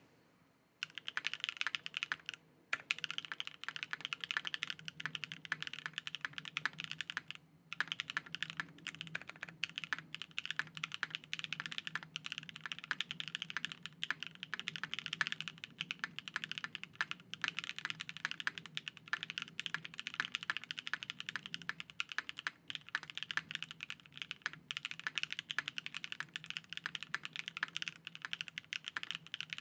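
Fast, continuous typing on a mechanical keyboard, an all-aluminium 60% RS60 with lubed Gateron Cream Soda linear switches on a UHMWPE plate and GMK keycaps: a clacky keystroke sound with a metallic edge from the aluminium case. The typing starts about a second in and pauses briefly twice.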